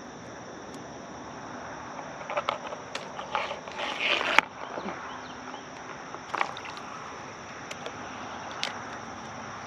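Steady high chorus of insects, with a run of short knocks and scrapes from gear being handled about two to four and a half seconds in, then a couple of single sharp clicks.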